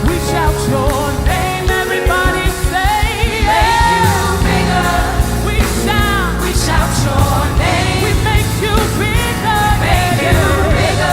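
Live praise and worship music: singers with vibrato over a full band with drums.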